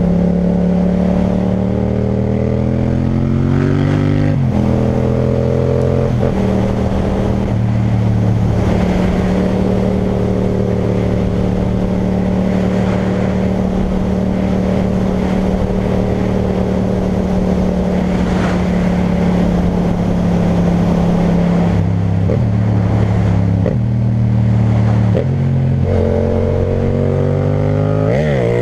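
Yamaha MT-07's parallel-twin engine, through an Akrapovic titanium exhaust, pulling on the road. The revs climb for the first few seconds and drop at a gear change, then hold one steady note for a long stretch of cruising. The note shifts twice and climbs again near the end.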